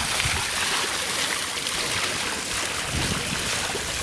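A steady, even rushing hiss, like running water, that sets in and cuts off abruptly.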